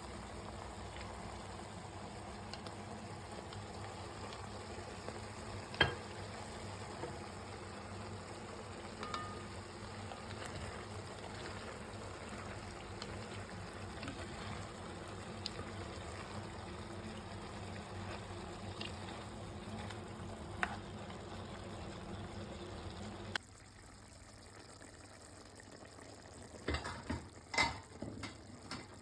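Chicken and vegetables frying in oil in a pot, a steady sizzle with a few short clicks now and then. The sizzle cuts off abruptly about two-thirds of the way through, and a handful of short knocks follow near the end.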